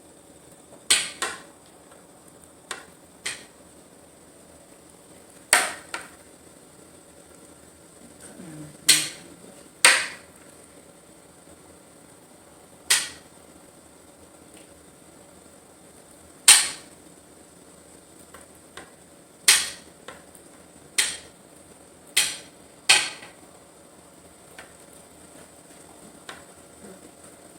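A kitchen knife knocking down sharply onto a glass cutting board while slicing tofu, about fourteen clicks at uneven intervals, each with a short ring.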